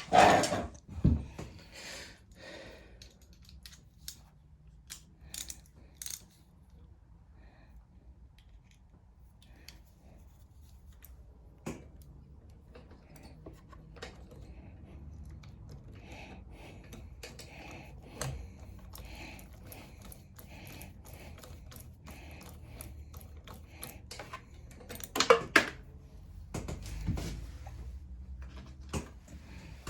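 Scattered clicks and light clatter of small metal parts and hand tools being handled, with two louder clattering bursts, one at the start and one about 25 seconds in.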